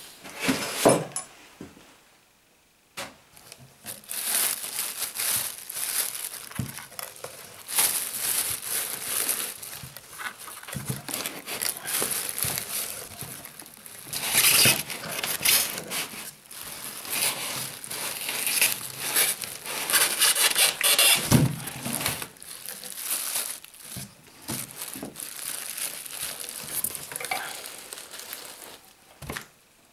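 Plastic wrapping crinkling and rustling in irregular bursts as a plastic-bagged bench grinder is handled and lifted out of its box, with a single thump about two-thirds of the way through.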